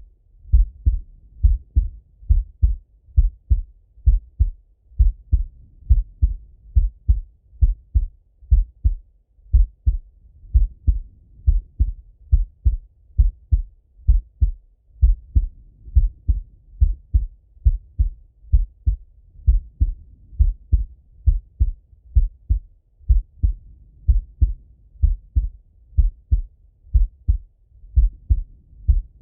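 A man's heartbeat heard through a stethoscope chest piece: steady, even lub-dub beats, each a short low thump.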